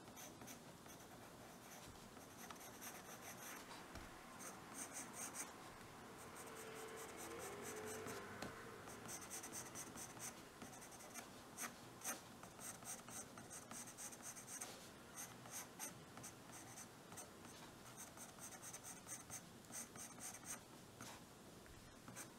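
Soft graphite pencil scratching faintly on drawing paper in runs of quick back-and-forth shading strokes, with short pauses between runs.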